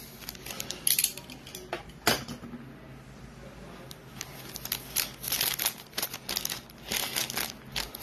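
Plastic wrapping crinkling and rustling in short bursts as it is handled, with a couple of sharp taps about one and two seconds in.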